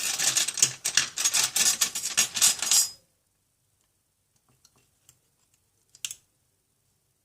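Rapid, dense clicking and rattling of small metal repair tools and parts being handled on a workbench, lasting about three seconds. It is followed by a few faint ticks and one sharper click about six seconds in.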